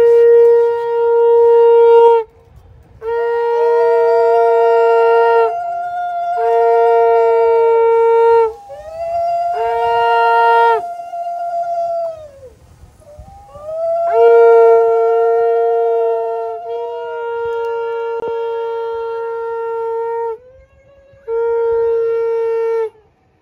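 Conch shells (shankha) blown in a run of about seven long blasts, each a steady tone held for one to four seconds, with a second, higher tone slowly rising and falling alongside much of the time: the auspicious conch call of a Bengali wedding ritual.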